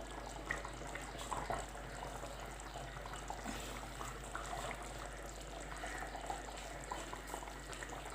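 Kingfish curry in a pot bubbling faintly with scattered small pops, its stove flame just turned off.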